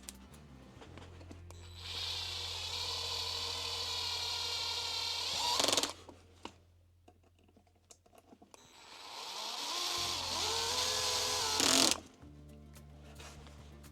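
Small electric screwdriver driving screws into the model truck's chassis rails: two runs of about four and three seconds, each getting louder just before it stops, over background music.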